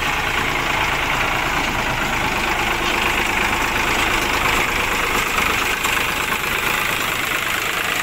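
Sonalika DI-745 III tractor's diesel engine running steadily as the tractor moves slowly. The deepest rumble thins out about five and a half seconds in.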